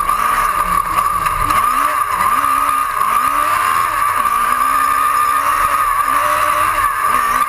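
Autocross race car engine at racing revs, picked up by a bonnet-mounted camera, its pitch rising and falling several times as the car drives through the course. A steady rush of wind and tyre noise runs under it, with a constant high hum on top.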